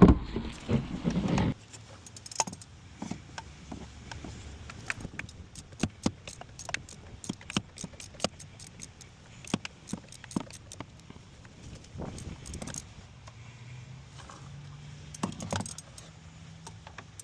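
Irregular metallic clicks and clinks of tools and parts being handled, many in quick succession, after a loud rustle of handling in the first second and a half.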